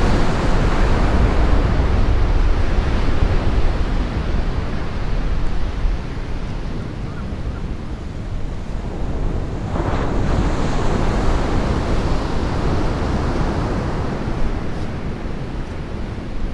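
Wind buffeting the microphone over the steady wash of surf on the shore, with a wave breaking louder about ten seconds in.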